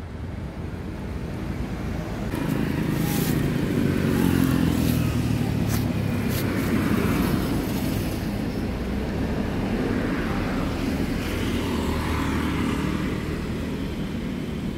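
A motor engine running steadily, growing louder about two seconds in, with a few short sharp clicks or rustles over it.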